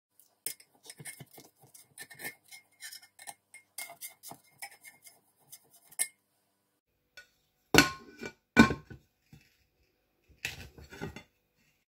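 A knife scraping and clicking around the inside wall of a metal pressure cooker to loosen a baked cake, then two loud knocks and a short clatter as a plate meets the cooker.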